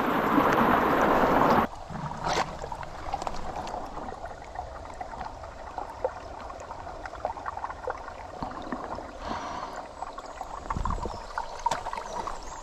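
Rushing water of a mountain stream. It is loud for about the first second and a half, then drops suddenly to a quieter steady wash with scattered small clicks.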